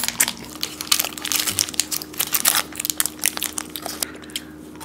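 Close-miked crunching and chewing of chocolate-filled biscuits, mixed with the crinkle of plastic biscuit wrappers. The crackles come thick and fast and thin out near the end.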